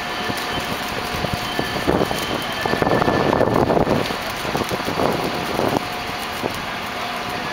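Mobile crane's engine running steadily, with a faint steady whine over it and a few short knocks.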